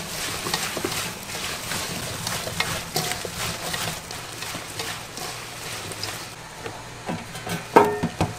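Food frying in a pan while being stirred, with many short clicks of the utensil against the pan and a louder clatter near the end.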